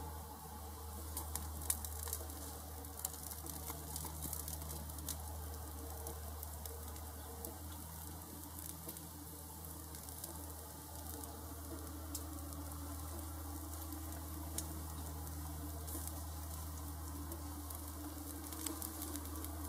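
Meat and dripping fat sizzling on a gas churrasco rotisserie grill, with scattered sharp pops and crackles, over a steady low hum.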